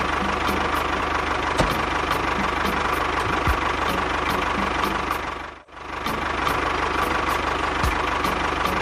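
Tractor engine running steadily with a low chugging beat, cutting out briefly about five and a half seconds in and then carrying on.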